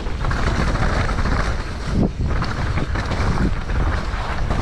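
Wind buffeting the microphone of a camera on a mountain biker riding a muddy trail at speed, with a rumble of tyres and bike over rough ground and a jolt about two seconds in.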